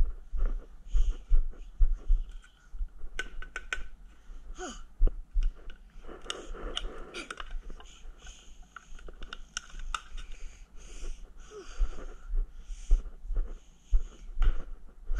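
Wheezy breathing close to the microphone, with scattered sharp clicks and rustles of handling, busiest about six to seven seconds in.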